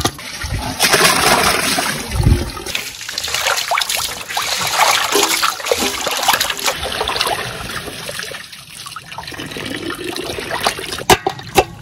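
Water splashing and sloshing in a metal basin as cut fish pieces and whole fish are rinsed and rubbed clean by hand, with many small knocks of the pieces against the basin.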